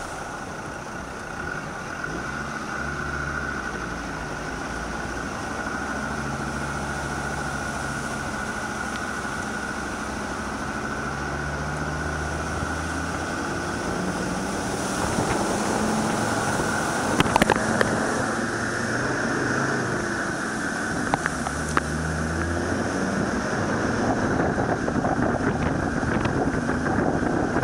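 Land Rover Defender on the move through a wet, flooded lane: a steady rush of wind and water noise on the outside-mounted microphone, with the engine note coming and going and changing pitch in steps. A few sharp knocks come about two-thirds of the way through.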